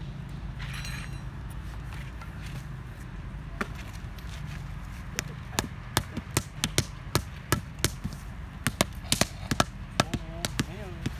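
Paving work: a hard tool knocking on paving stone or brick in sharp, irregular taps. The taps begin a few seconds in and come faster and closer together, over a low steady hum.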